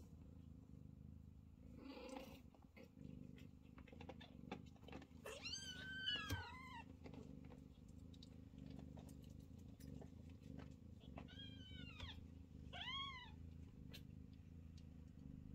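Scottish Fold kittens mewing in short, high, rising-and-falling cries: a cluster of three or four about six seconds in, then two more a few seconds later. Underneath runs a low, steady purring from the nursing cats, with faint scattered ticks.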